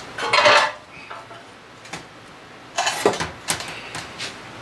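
Metal clanks and clatter from handling an outboard's aluminium lower unit and setting it on a metal stand: a short burst in the first half-second and another clattery burst with sharp clicks about three seconds in.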